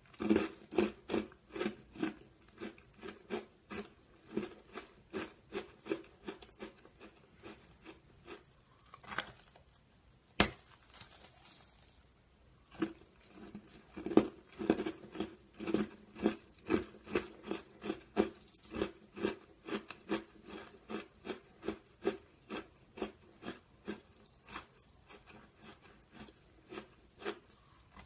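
Close-up chewing and crunching of aerated foam-concrete block, about two chews a second, with a break of a couple of seconds near the middle and a few sharp clicks.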